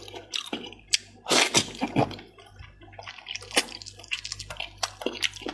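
Close-up wet chewing and smacking of someone eating stir-fried chicken heads in chili sauce, a run of irregular sharp clicks and squishy mouth sounds.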